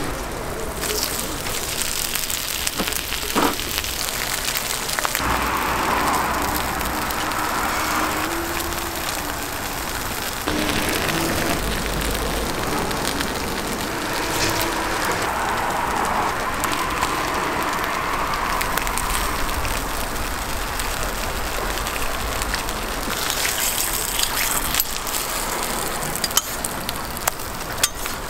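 Steady sizzling of eggs and bread frying on a steel flat-top griddle, with a few sharp clicks of metal tongs on the steel, several of them near the end.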